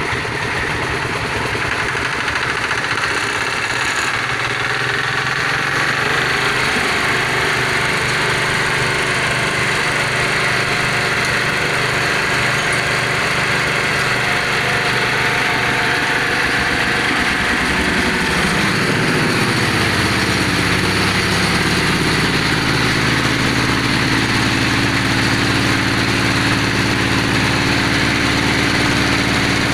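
Small engine of a well-drilling machine running steadily. About two-thirds of the way through, its pitch slides down and settles lower, then it runs on evenly with a deeper hum.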